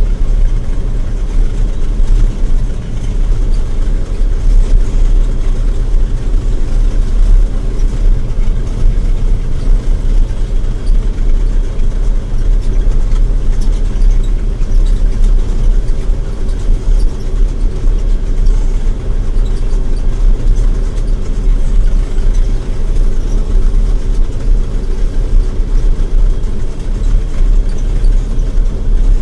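John Deere 9700 combine running steadily under load while harvesting wheat: a continuous, even drone of the diesel engine and threshing machinery.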